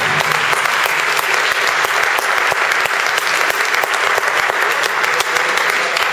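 Audience applauding, dense steady clapping at the end of a team gymnastics routine, just after its music stops.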